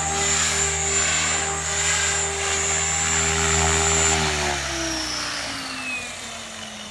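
Radio-controlled helicopter's motor and rotor running at a steady speed, then winding down from about four seconds in, the pitch falling and the sound fading: the helicopter has landed and is spooling down.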